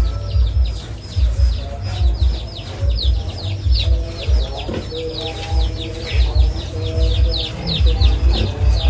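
Birds chirping steadily, with several short, high, falling chirps a second, over background music and irregular low thumping.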